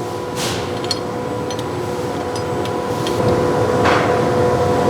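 A steady machine hum with a few light metallic clicks, as a wrench works the hydraulic tubing fitting loose.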